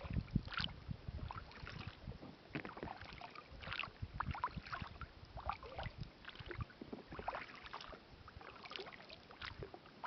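Kayak paddling on calm water: irregular small splashes and drips as the paddle blades dip and lift, with a few low knocks in the first two seconds.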